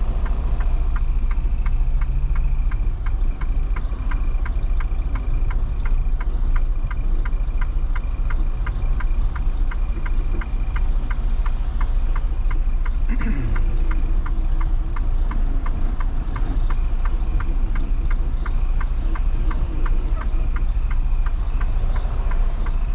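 Truck engine running at low speed, heard from inside the cab, with a rapid, regular ticking of about four clicks a second over it.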